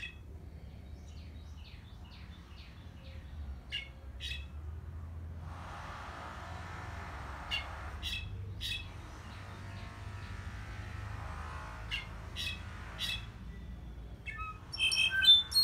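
Caged brown-backed solitaire (clarín) giving scattered short, high call notes and a run of quick falling notes, then breaking into a loud, dense burst of song near the end. A steady hiss sits under much of the middle.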